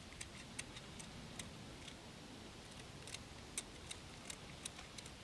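Faint, irregular small clicks and light scrapes from small metal tools and objects being handled in the hands.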